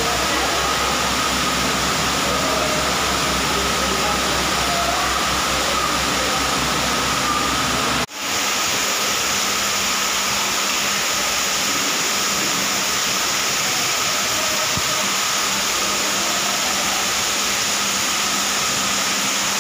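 Steady rushing, water-like noise of aquarium filtration and aeration, with a low hum and faint voices in the first part. It drops out for a moment about eight seconds in, then carries on as an even hiss with a low hum.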